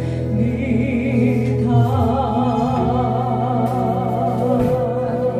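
Closing bars of a Korean gospel praise song: long notes sung with a wide vibrato over steady instrumental accompaniment.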